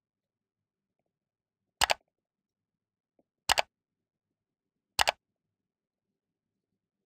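Three computer mouse-click sound effects, each a quick double click, about a second and a half apart, from a like, subscribe and bell reminder animation.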